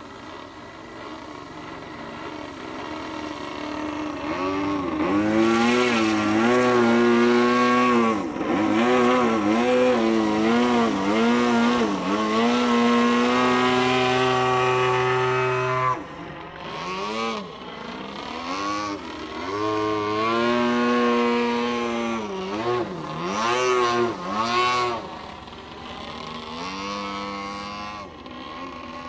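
RC model Corvus Racer 540 aerobatic plane, its motor and propeller running hard and rising and falling in pitch over and over, with quick swooping dips. It grows louder over the first few seconds and eases off near the end.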